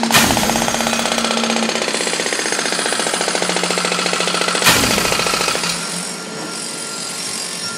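Building-work sound effect: a power tool hammering with a rapid, steady rattle over a motor hum. A loud knock comes at the start and another about four and a half seconds later, and the rattle eases off somewhat near the end.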